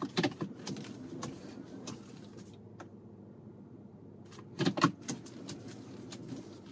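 Irregular light clicks and knocks inside the pickup cab as the steering wheel is turned hand over hand during slow parking manoeuvres, over a faint steady low hum. The loudest knocks come in a short cluster a little before five seconds in.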